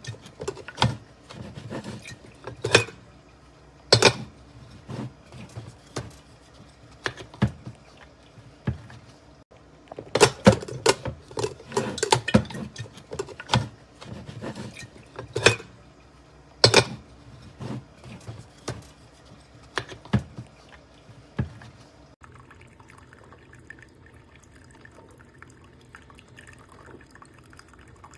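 Irregular knocks and clinks of kitchenware mixed with water sounds, then a quieter steady trickle after about twenty seconds.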